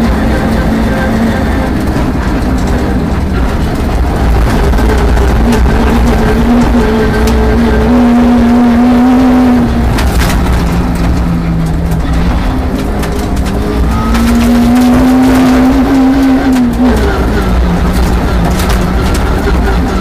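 Peugeot 306 RWD rally car's engine heard from inside the cabin, pulling hard on a gravel stage. The pitch climbs steadily and drops sharply twice, about halfway through and near the end. Gravel crackles and pings against the car throughout.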